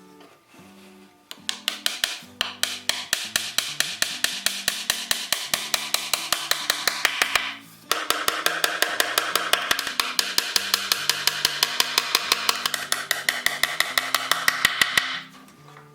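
Rapid, even strokes of a hand or power tool working wood, about six a second, in two long runs with a short break midway, over background music.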